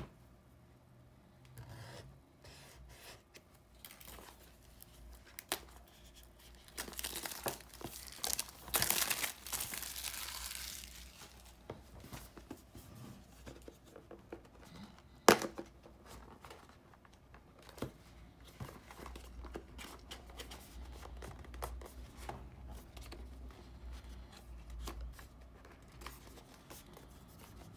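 Plastic wrapping being torn and crinkled off a small cardboard product box: scattered crackles, a long tearing rustle from about 7 to 11 seconds in, and one sharp click about halfway through.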